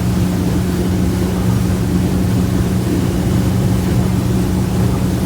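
Boat engine running steadily in gear, held at about 2,800 RPM during a stepped RPM run-up: a loud, even drone.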